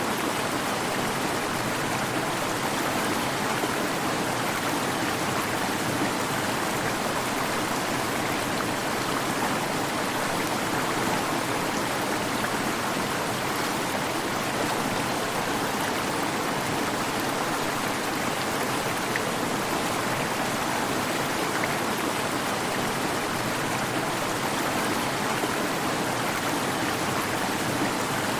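Waterfall: water falling and rushing in a steady, unbroken roar-like wash of noise.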